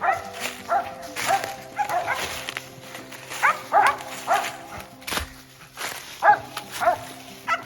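Squirrel dogs barking in a rapid, uneven series, one or two barks a second. Steady background music plays underneath.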